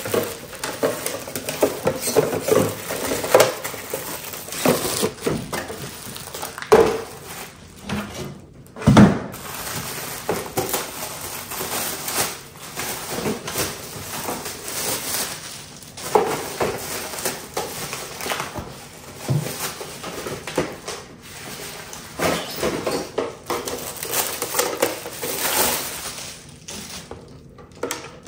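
Clear plastic fridge organizer bins and their slotted drainer trays being unpacked and handled: repeated plastic clacks and knocks with rustling of the wrapping. The loudest knock comes about nine seconds in.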